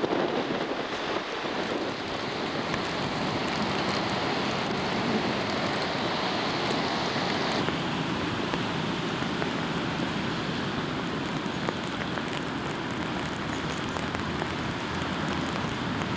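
Steady hiss and roar of wind and rough surf in stormy weather, with no single wave break standing out. The sound changes abruptly about eight seconds in, losing some of its highest hiss.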